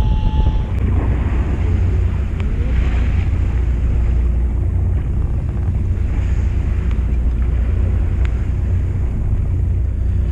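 Fishing boat's engine running with a steady low rumble, mixed with wind buffeting the microphone and waves splashing against the hull.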